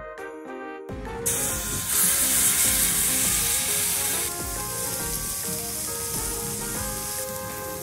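Raw chicken pieces sizzling as they are laid on a hot slotted yakiniku grill plate. The hiss starts about a second in, is loudest for the next three seconds and then settles to a softer, steady sizzle.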